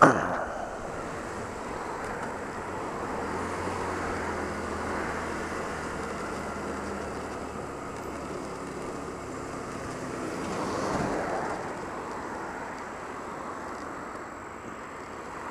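Honda Varadero 125's small V-twin engine running as the motorcycle rides in slow traffic, mixed with wind noise on the microphone. A sharp click sounds at the very start.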